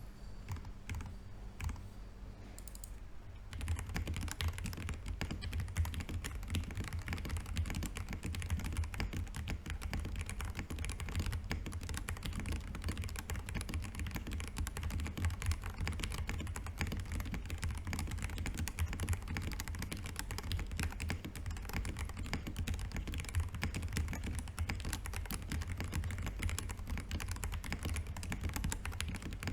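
Mechanical keyboard, a Zoom TKL with a brass plate and stock Najakeys TU switches, being typed on. A few scattered keystrokes, then from about three and a half seconds in, fast continuous typing.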